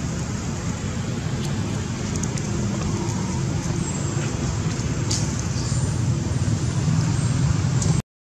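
Steady low rumbling background noise with a few faint clicks over it; the sound cuts out briefly near the end.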